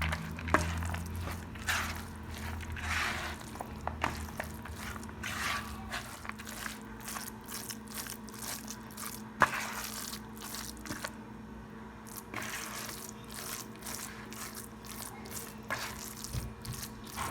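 Seasoned minced chicken breast with chopped vegetables being mixed in a bowl: irregular wet squelching and scraping, over a faint steady hum.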